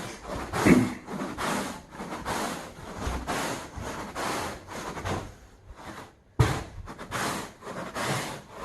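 Carpet brush scrubbing back and forth across the carpet pile in quick, regular strokes, about two to three a second, agitating it to loosen dirt before extraction. There is a brief pause about six seconds in, then a sharp scuff.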